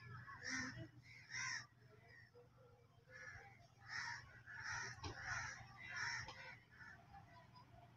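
Birds calling from around the station, about seven short calls spread irregularly over several seconds, over a faint steady low hum.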